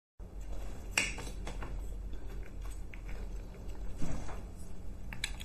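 A metal spoon clinking and scraping against a stainless steel bowl while soaked soybeans are scooped out. There is a sharp clink about a second in, a duller knock around four seconds in, and a few light clicks near the end.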